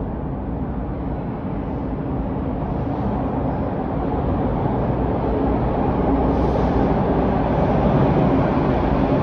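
Rumble of an approaching Bombardier T1 subway train still in the tunnel, growing steadily louder.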